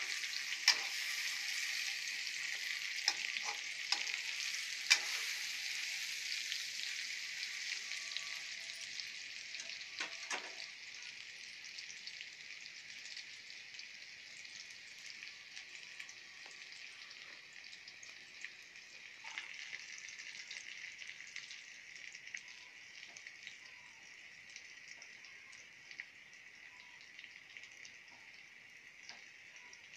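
Raw mango wedges and cumin seeds sizzling in hot oil in a wok, with sharp clicks of a metal slotted spoon knocking and scraping the pan as they are stirred, mostly in the first half. The sizzle gradually dies down.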